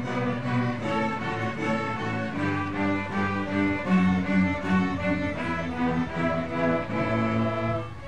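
Children's string orchestra playing a piece together: violins over lower strings holding the bass notes, in a moving passage of many short notes. The playing drops to a softer level just at the end.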